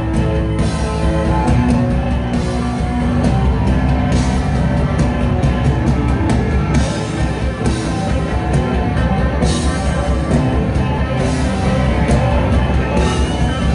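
Loud live rock band playing through a PA, with driving drums and cymbal hits, heard from among the audience.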